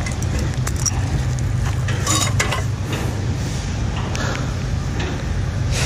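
Light metallic clinks and rattles of scrap metal on a magnet-fishing magnet, with a few sharper ones about two seconds in, over a steady low rumble.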